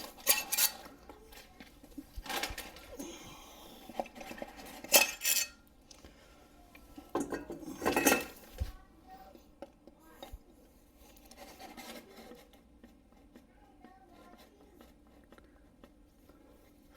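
Metal engine parts and tools clinking and clanking as they are handled on the bench, with a few sharp metallic knocks in the first half, loudest about five and eight seconds in, then only light faint clicks.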